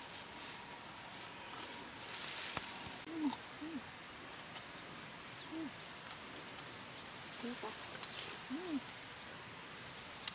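Leaves and ferns rustling as someone moves in thick undergrowth. A few short low calls come through between the rustles, each rising then falling in pitch, spaced a second or more apart.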